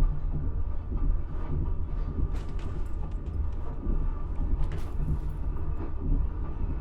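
Railway carriage running: a steady low rumble with many short clicks and rattles in the middle of the stretch.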